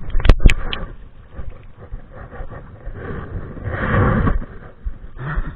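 Two sharp knocks near the start, then scuffing and scraping with a louder rough burst about four seconds in: a person slipping and sliding on slick ground with fishing gear.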